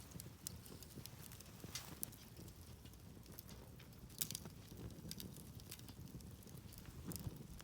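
Wood campfire crackling, with irregular sharp snaps and pops; the loudest snap comes about four seconds in.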